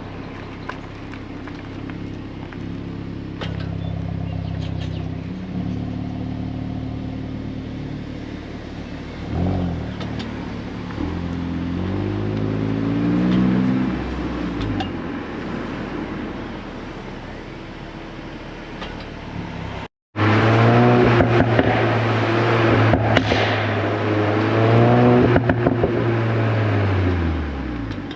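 VW Golf 8 R's turbocharged 2.0-litre four-cylinder running through its Akrapovic exhaust, holding steady engine speeds with several rises and falls in revs. After a brief break about twenty seconds in it is louder, with quick revs up and down, and the pitch falls away near the end as it eases off.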